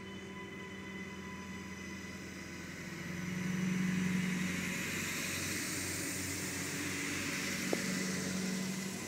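Adelaide Metro 3000-class diesel railcar running past along the platform: a low engine drone with wheel and rail hiss. The drone swells about four seconds in and again near the end, with one sharp click shortly before the end.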